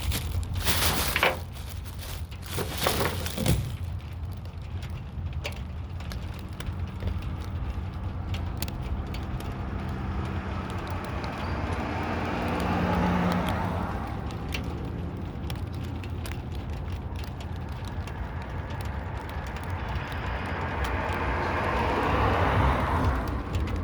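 Two vehicles driving past one after the other, each a swell of tyre and engine noise that rises and fades, over a steady low rumble of wind on the microphone. Two short bursts of rushing noise come in the first few seconds.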